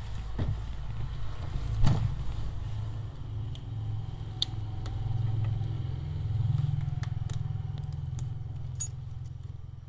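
Light metallic clicks and clatter of repair tools working at the metal shield on a Redmi 9A smartphone's main board, over a steady low hum that swells and fades.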